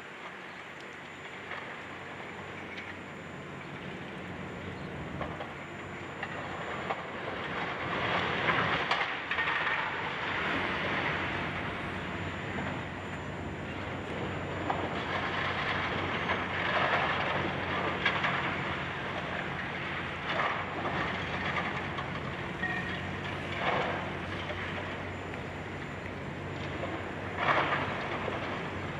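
Demolition excavator's diesel engine running steadily, with repeated bursts of crunching and rattling as building debris is torn down and falls, the loudest near the end.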